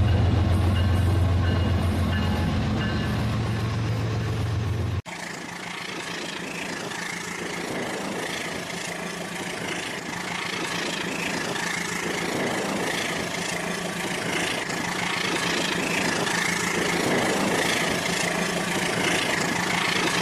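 Battery-powered Rail King toy train running on its track, with a steady small-motor whir and wheel rattle. A deep, even hum plays for the first five seconds and cuts off suddenly.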